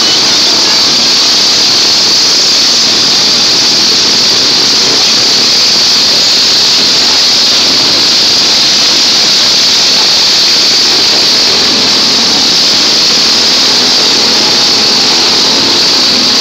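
Small engines of several riding lawn mowers running together, a steady, loud din in which no single engine or event stands out.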